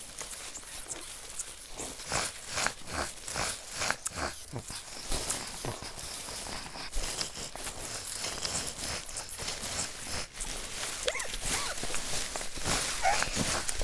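Dry leaves rustling and crunching in short, irregular bursts, like small animals scurrying through leaf litter.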